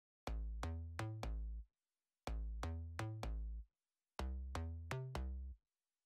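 Electronic music with a drum-machine beat and deep bass, playing in three short phrases of about a second and a half, each cut off by a brief silence.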